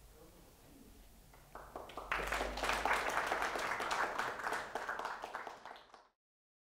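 Audience applauding. It starts about a second and a half in, quickly swells to a dense clapping, then fades and is cut off abruptly near the end.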